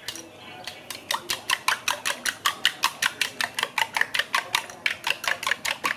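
Metal spoon beating egg in a ceramic bowl: quick, even clinks against the rim, about six a second, starting about a second in.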